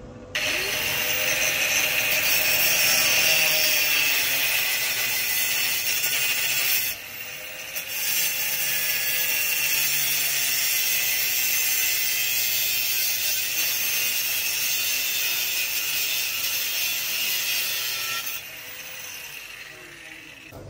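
Angle grinder cutting metal, a steady high-pitched grinding hiss. It stops briefly about seven seconds in, starts again, and cuts off a couple of seconds before the end.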